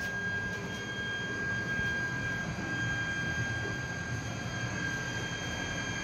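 A household water pumping station's electric surface pump running steadily: a constant hum with a thin high-pitched whine. It is building water pressure for the house's plumbing.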